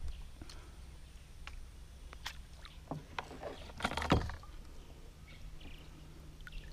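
Scattered light clicks and knocks from fishing tackle being handled in a kayak as the line is pulled in by hand, with one louder knock about four seconds in.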